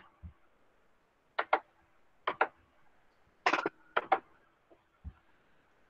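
Computer mouse clicking: four short pairs of sharp clicks spread over a few seconds, with a faint low thump or two.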